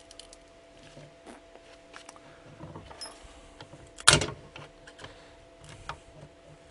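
Small clicks and scrapes of a hand tool working at glued-on components on a circuit board, with one sharp knock about four seconds in.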